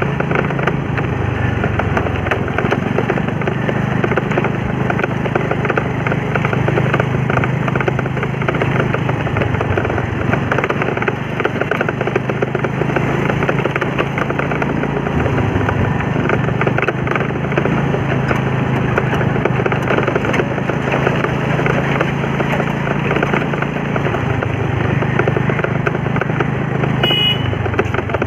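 A two-wheeler's engine running as it is ridden, with steady road and wind noise; the engine note drops and rises a few times with speed. A brief high beep sounds near the end.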